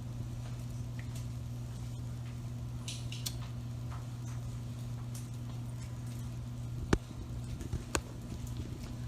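A steady low hum with scattered small clicks and taps of handling; the loudest is a sharp click about seven seconds in, with another a second later.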